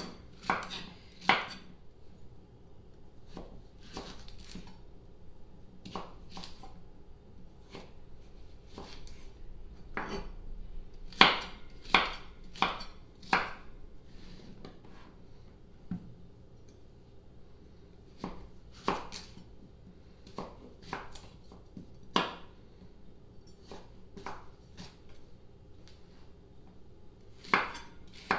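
Chef's knife chopping yellow crookneck squash on a wooden cutting board: irregular sharp knocks of the blade meeting the board, some in quick runs, with pauses between cuts.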